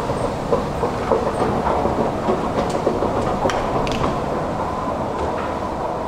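Metro-station escalator running: a steady mechanical rumble with clattering steps and small squeaks and clicks as it reaches the landing. A steady high whine comes in about halfway through and grows.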